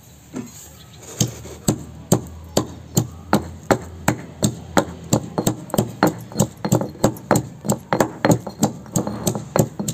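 Garlic cloves pounded in a stone mortar with a stone pestle: a steady run of knocks, about two strikes a second, starting about a second in.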